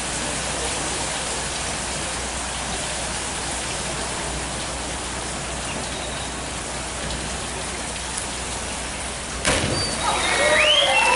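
Steady hiss of water spraying onto the surface of a diving pool. About nine and a half seconds in comes the single splash of a diver entering the water from the high platform, followed by voices calling out.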